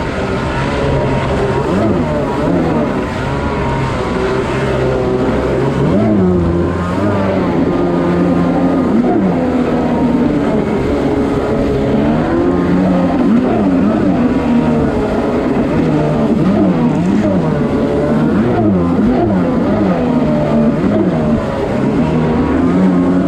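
Kawasaki 550 stand-up jet ski's two-stroke engine running under throttle, its note rising and falling again and again as the ski skims and turns, with water spray rushing along the hull.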